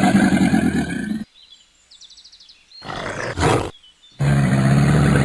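Big cat growling: one long, loud growl that stops a little over a second in, a shorter growl about three seconds in, and another long growl from about four seconds in.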